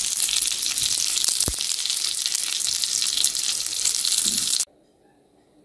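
Hot oil sizzling in a frying pan around egg-filled tomato rings and a whole green pepper, a dense steady hiss that cuts off suddenly near the end.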